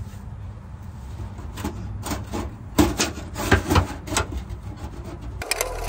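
Irregular scraping, rubbing and knocking of metal car parts being worked by hand while forcing a stuck front-end piece loose, with a cluster of sharp knocks in the middle. Music cuts in abruptly near the end.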